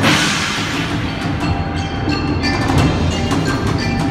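Percussion ensemble playing mallet keyboards (marimba and vibraphone), a quick run of struck bar notes over low notes underneath. A bright crash right at the start rings away over about a second.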